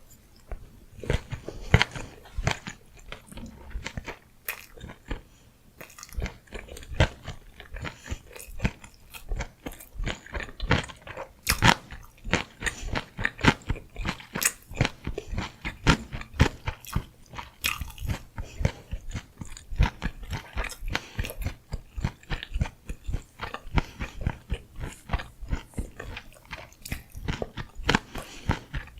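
Close-miked chewing of gimbap, rice and fillings rolled in seaweed: a dense run of wet mouth clicks and crunchy bites, with a short lull about five seconds in.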